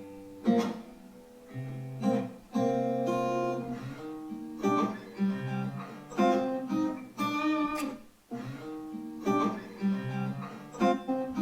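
Acoustic guitar playing a phrase of plucked single notes and strummed chords, each note dying away after it is struck.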